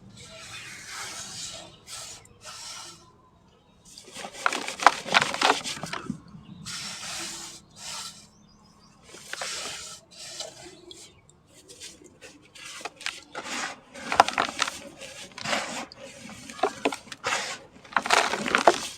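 Dry sand-cement chunks crumbling and crushing apart with a crackly, sandy hiss, coming in irregular bursts a second or two long with short pauses between.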